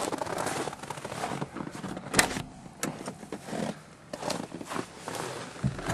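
Clicks and knocks of a Jeep YJ's door and cab as someone opens it and climbs into the driver's seat, with rustling in between. The sharpest click comes about two seconds in.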